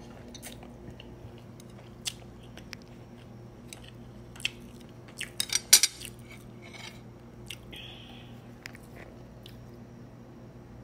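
Close-up chewing of a mouthful of noodles, with scattered short clicks of chopsticks and a quick cluster of louder clicks a little past halfway.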